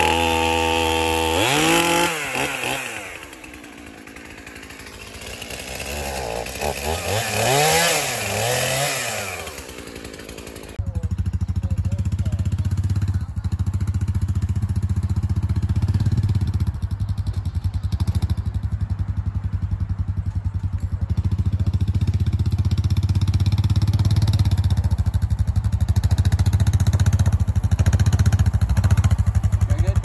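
Stihl MS 271 Farm Boss two-stroke chainsaw running at high revs, then dropping back and revving up and down several times as it trims branches. About eleven seconds in it gives way abruptly to a Honda ATV's engine running steadily.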